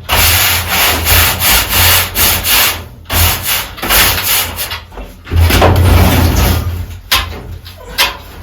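Quick repeated scraping strokes on wood, in runs broken by short pauses.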